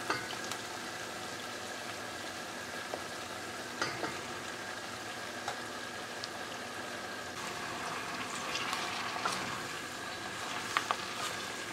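Oyster mushrooms, onion and garlic sizzling steadily in hot olive oil in a stainless steel pot, with a few light clicks of a wooden spoon. The sizzle grows a little louder in the last few seconds as the mushrooms are stirred.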